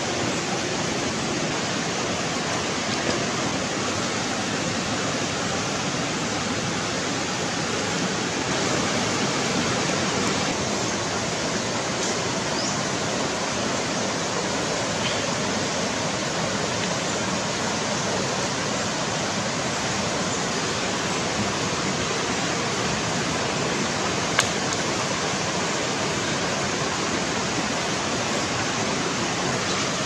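Steady rush of a fast-flowing river running over rocks, with one sharp click about three-quarters of the way through.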